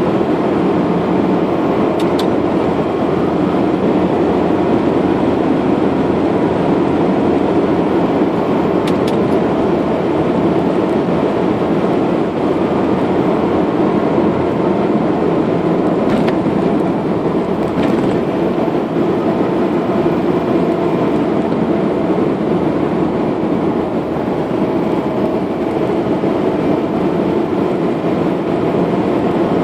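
Car travelling at road speed: a steady, even rush of tyre and wind noise with no change in pace, with a few faint ticks.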